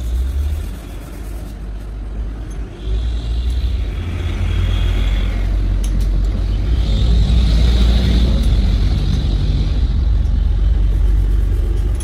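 Crankshaft grinding machine running: a steady low rumble that builds up about three seconds in, with a high hiss that rises twice and fades.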